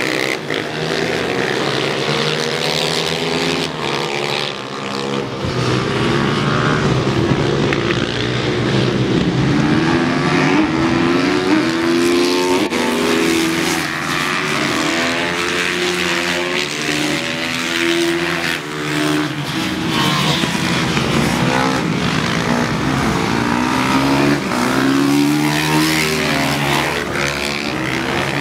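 Several small supermoto motorcycle engines racing, revving up and easing off through the corners, their pitches rising and falling over one another.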